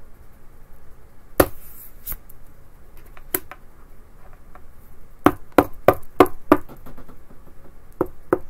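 Sharp knocks and taps on a wooden tabletop as tarot cards are handled: a few single knocks, then a quick run of about six around the middle, and a couple more near the end.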